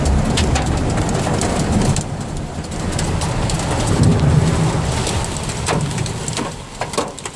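Heavy rain and hail pelting a vehicle, with many sharp hailstone impacts over a steady downpour, and a low rumble of thunder that swells about halfway through.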